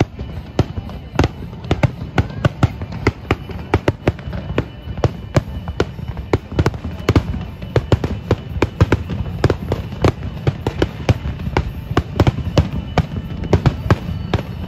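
Aerial fireworks shells bursting in quick succession, several sharp bangs a second over a continuous low rumble.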